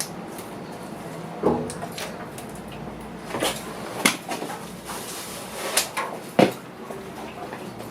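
A handful of sharp clicks and knocks at irregular intervals, the loudest near the end, like tools or parts being handled.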